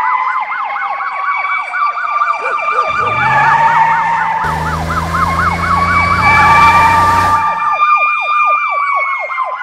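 Emergency vehicle siren, a fast warbling yelp of about five rises a second layered over a steadier wail. A deep steady tone with a hiss joins at about three seconds and stops shortly before eight seconds.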